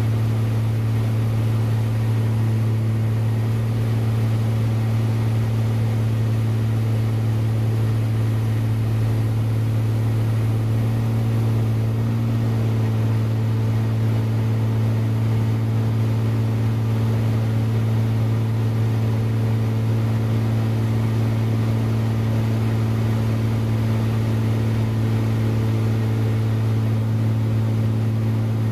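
Aerobatic plane's piston engine and propeller droning steadily in flight, heard from inside the cockpit: a constant deep tone with higher overtones.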